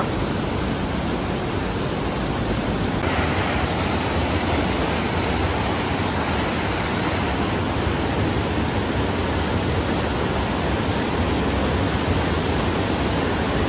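Steady rush of a fast mountain river's whitewater rapids pouring over boulders, turning brighter and hissier about three seconds in.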